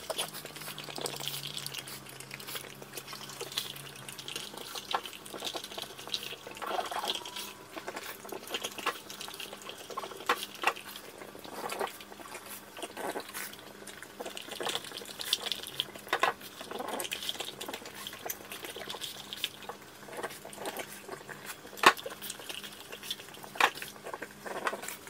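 A French bulldog eating and licking from its food bowl: irregular wet smacking, slurping and tongue clicks, with a sharper click near the end.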